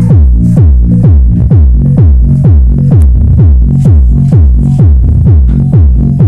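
Electronic dance music played very loud through a subwoofer powered by a D900 mini amplifier during a bass test. Heavy kick-drum booms come about twice a second, each falling in pitch, over a deep bass line.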